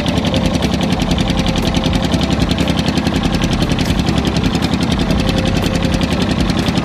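Fishing boat's engine running steadily with a rapid, even chugging beat.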